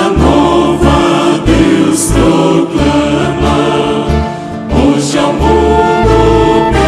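A church choir singing a hymn in Portuguese. A front row of men sings into microphones with men's and women's voices behind, over an instrumental accompaniment with a steady bass.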